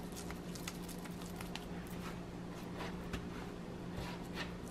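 Hands patting and pressing a breadcrumb-coated minced-meat cutlet on a wooden board: soft, irregular pats and squishes of the raw meat.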